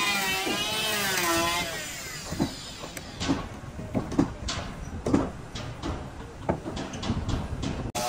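A pitched tone wavering up and down fades out about two seconds in. Then come irregular sharp knocks of a tool striking wood, about one or two a second.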